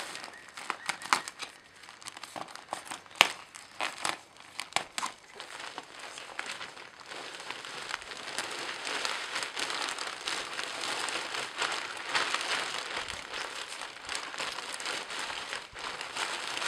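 Plastic potting-mix bag crinkling and crackling as it is handled and opened, with sharp crackles over the first few seconds. From about halfway on, a steady rustling hiss as the potting mix pours out of the bag into the pot.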